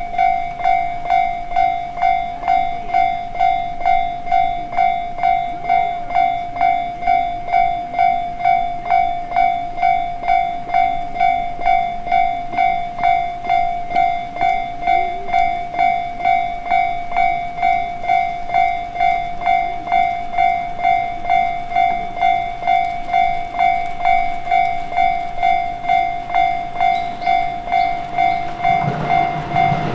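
Japanese railway level-crossing warning bell ringing its repeating electronic 'kan-kan' strikes, about one and a half a second. Near the end a rising rumble sets in under it as a train approaches.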